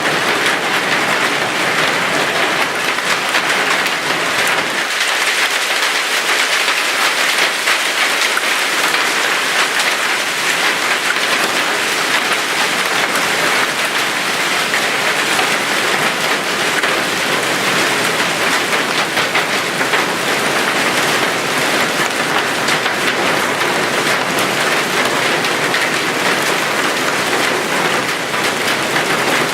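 Heavy rain and golf-ball sized hail pelting down in a dense, steady clatter during a supercell thunderstorm.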